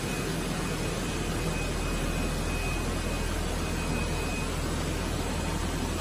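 Steady machine noise of a running spiral-reinforced vacuum-cleaner hose production line, an even rushing noise over a low hum.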